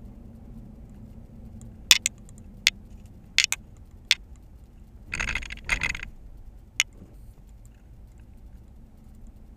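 Inside a car rolling slowly: a low steady hum of engine and tyres, with sharp clicks and jingling rattles of loose things in the cabin. The rattling is loudest for about a second, five to six seconds in, as the car goes over a speed bump.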